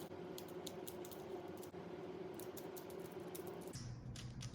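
Rubik's-type picture cube being turned by hand: quick, irregular clicking of the layers as they turn. A steady low hum runs underneath and drops in pitch near the end.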